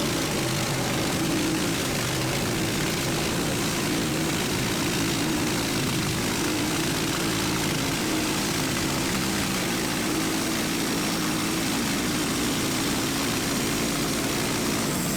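Small gas engine of a Norwood manual band sawmill running steadily under load as the blade saws the first slab off an oak log.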